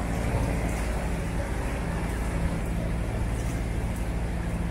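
A motor-sailer's inboard diesel engine running steadily at cruising speed inside a long canal tunnel, a low, even drone.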